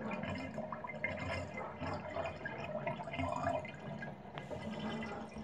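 Bathtub water draining out through a trip-lever drain that has just been flipped open, a steady watery running sound: the freed plunger stopper is letting the water go.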